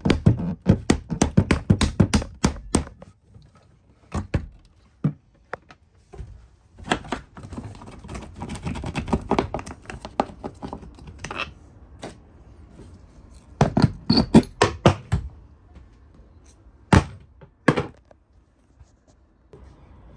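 Handling noise of wiring and plastic fittings being worked behind a wooden boat dashboard panel: rapid knocks, taps and clicks in clusters with short pauses between.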